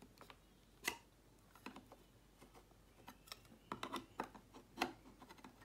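Faint, scattered clicks and taps of a clear plastic magnetic one-touch card holder being handled as a trading card is fitted into it. The sharpest click comes about a second in, with small clusters of taps later on.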